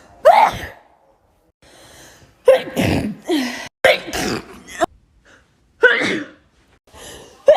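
A person sneezing again and again, about five sharp sneezes in a row, each a second and a half to two seconds apart.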